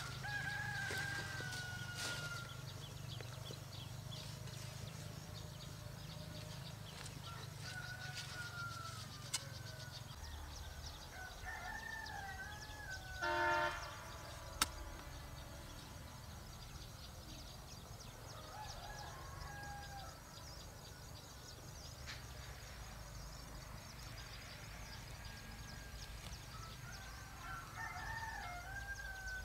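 Rooster crowing about five times, each a drawn-out wavering call, over a steady low hum. A short, louder squawk comes about 13 seconds in, followed by a sharp click.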